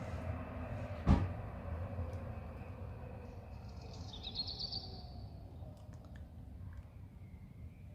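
Birds chirping outdoors over a low rumble of passing traffic that fades away, with a short high trill about four seconds in. A single sharp knock about a second in is the loudest sound.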